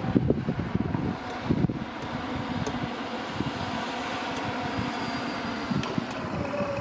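Wind buffeting the Lumix FZ82 camera's built-in microphone: irregular low rumbling gusts over a steady rushing hiss, strongest in the first couple of seconds.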